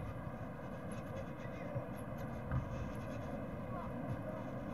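Steady hiss and hum of an old news-film soundtrack, with wind rumbling on the microphone and a few dull thumps.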